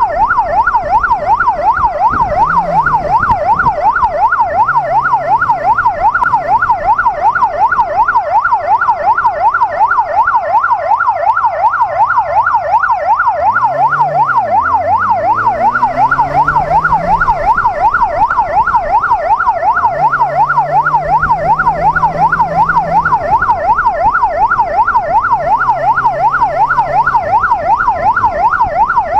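Police motorcycle's electronic siren in a rapid yelp, sweeping up and down several times a second without a break. Underneath, the bike's inline four-cylinder engine revs up and down as it rides.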